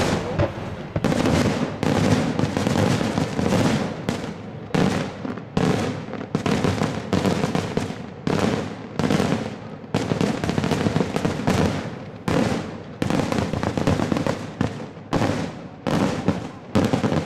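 Daytime aerial fireworks: a rapid, unbroken string of loud shell bursts, about two bangs a second, each trailing off in an echo.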